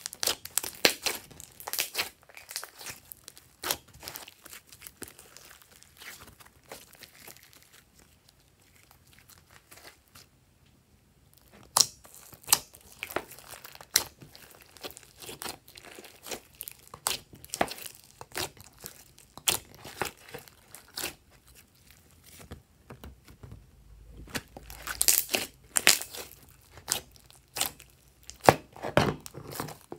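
Hands squishing, stretching and kneading glossy slime: irregular sticky crackles and pops as it is squeezed and pulled apart. The sounds thin out about a third of the way in, then come thick again.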